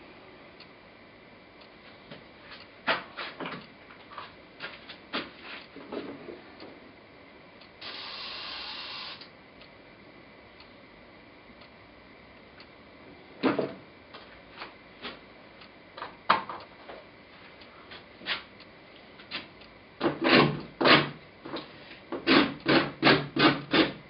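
A paintbrush dabbing and scrubbing against a heavily textured, encrusted painting surface: scattered taps, a rasping stroke lasting about a second some eight seconds in, and a quick run of about eight dabs near the end.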